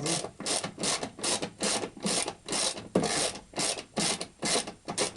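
Ratchet wrench worked in quick back-and-forth strokes, about three a second, each stroke a short rasping burst of clicks, as it spins a suspension nut loose.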